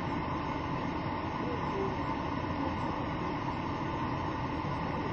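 A car engine running steadily at an even level.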